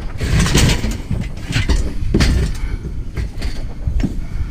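Scrap metal being dragged and shifted while it is pulled back out of a vehicle's cargo space: a rumbling scrape with repeated knocks and rattles.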